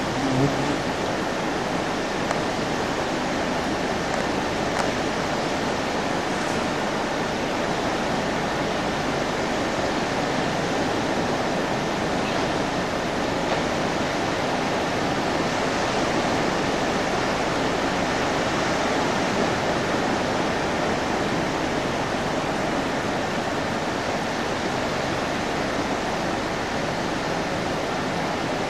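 Steady rushing noise of the sea and wind at the shore, even throughout with no engine note standing out. A brief low tone sounds about half a second in.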